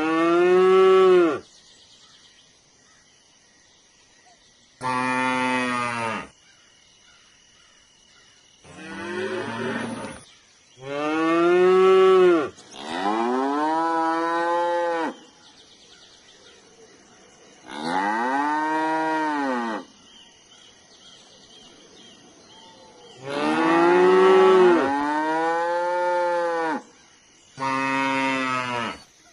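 Cattle mooing: about eight separate moos, each one to three seconds long, with short pauses between. Each moo rises and then falls in pitch.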